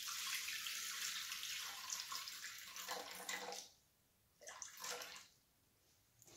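Water poured from a glass jug into a Thermomix's stainless-steel mixing bowl: a steady splashing stream for about three and a half seconds that then stops.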